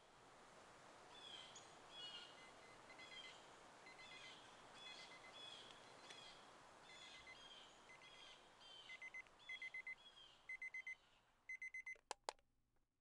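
A bird chirping repeatedly, about once a second, over faint hiss. From about nine seconds in an electronic alarm clock beeps in quick bursts of several beeps, and two sharp clicks follow near the end.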